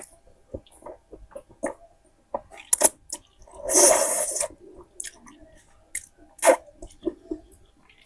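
Close-miked eating of spicy noodles and eggs: wet chewing and lip smacks in short sharp clicks, with one longer slurp about four seconds in.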